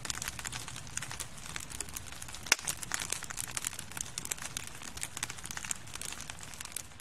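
Wood fire crackling, with many small irregular snaps and one sharper pop about two and a half seconds in.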